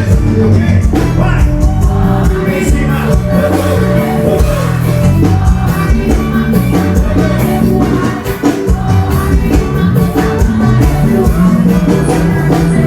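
Forró band music with a singer over a steady, heavy bass beat.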